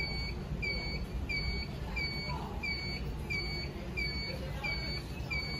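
Notifier by Honeywell fire alarm control panel's built-in sounder beeping steadily, a short high beep about one and a half times a second, over a low background rumble. The amber status lights are lit, and a panel beeping like this typically signals a trouble or supervisory condition that has not been acknowledged.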